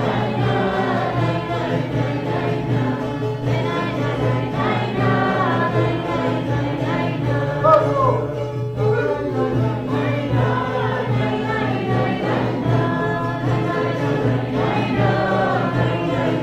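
Several voices singing together in chorus over a steady low drone that holds one pitch throughout.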